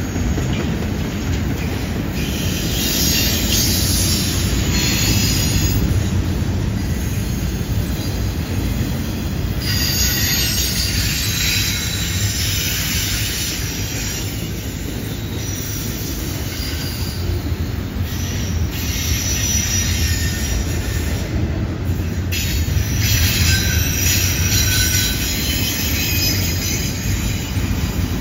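Loaded double-stack intermodal well cars of a freight train rolling past on a curve. There is a steady low rumble of wheels on rail, with high-pitched wheel-flange squeal coming and going in several spells.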